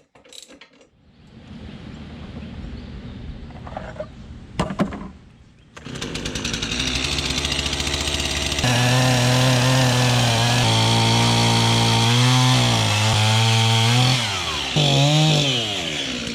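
Chainsaw running at full throttle, cutting into an oak log, its pitch sagging under load and rising again as it is eased off, twice near the end. Two sharp knocks come before it, a few seconds in.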